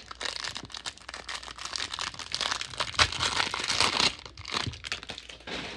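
Clear plastic wrapper of a trading card pack crinkling as hands tear it open, a dense crackle that is busiest in the middle and dies down near the end.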